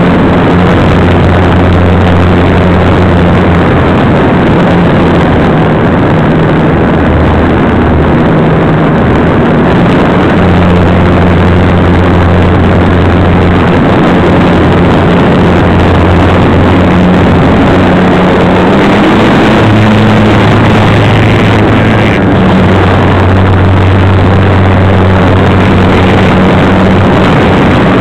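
Electric motor and propeller of a GWS Slow Stick model plane running steadily in flight, heard from on board as a loud hum under a heavy hiss, its pitch shifting slightly up and down a few times with the throttle.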